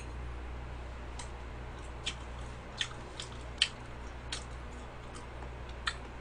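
Mouth sounds of chewing a bite of cheesecake close to the microphone: a handful of small wet smacking clicks, roughly one a second, over a low steady hum.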